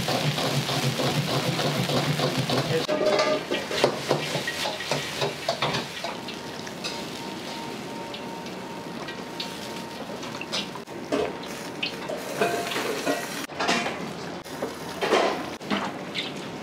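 A metal ladle stirring and scraping in a wok of simmering braising sauce over a gas burner, with scattered clinks and knocks of metal on metal, louder in the first few seconds. Near the end the ladle pours sauce over braised pork belly in a steel tray.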